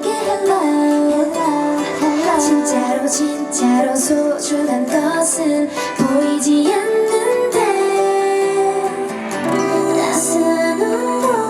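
Female voices of a pop girl group singing over a backing track of plucked strings and a beat, heard through a live concert sound system.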